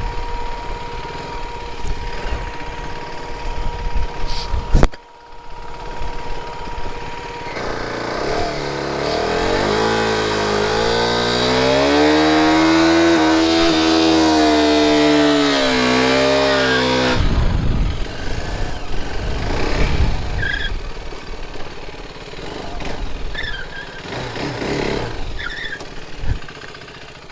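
Motorcycle engines: one runs until a sharp click about five seconds in cuts it off. Then another motorcycle's engine rises in pitch, holds and falls away again over about ten seconds.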